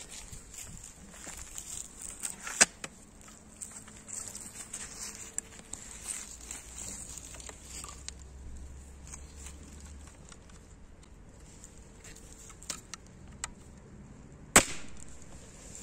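Small clicks and knocks of a Cold Steel crossbow, modified to a 220 lb draw, being handled and loaded, with one sharper click about two and a half seconds in. Near the end it is fired: one loud, sharp snap of the string.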